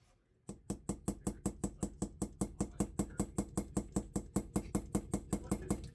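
Rapid, even light hammer taps on a concave-ended leather punch, about five to six a second, peening and doming the head of a pocket knife's pivot pin. The tapping starts about half a second in and keeps a steady rhythm.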